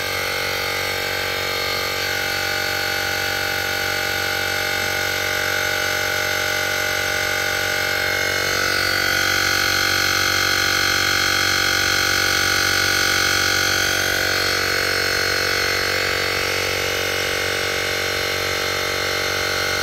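JM-8817 digital portable air compressor running steadily while slowly inflating a tire, a continuous drone of several steady tones. Its tone shifts slightly about eight seconds in and again a few seconds later.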